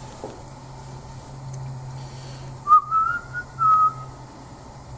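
A person whistling a few short notes about halfway through, rising in pitch and then settling, over a steady low hum.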